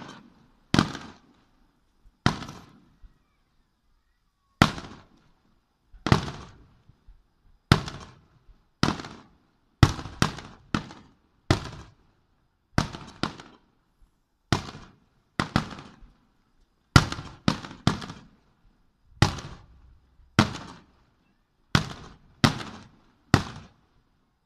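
Aerial firework shells bursting, over twenty sharp bangs at irregular intervals, sometimes two or three in quick succession, each trailing off in a short echoing tail.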